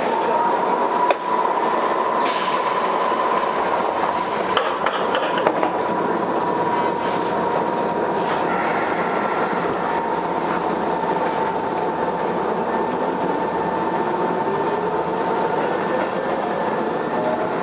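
Keisei 3500-series (renewed) electric train running, heard from on board: steady rolling rumble under a motor and gear whine that holds one pitch, with a few rail-joint clicks in the first seconds. Near the end a second whine rises in pitch as the train picks up speed.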